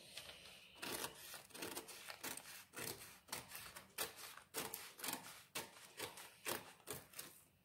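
Scissors snipping through a paper skirt pattern, a run of quick cuts at about three a second, starting about a second in.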